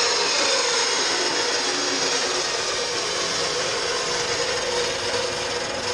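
A power tool running steadily: a continuous rough noise with a faint whine in it.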